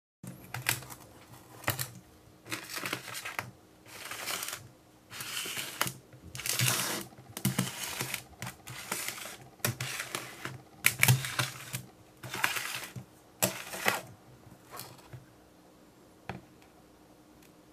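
Handling noise of a round metal pan being turned and tilted by hand: irregular rubbing, scraping and light knocks of the metal against a table, dying away in the last couple of seconds.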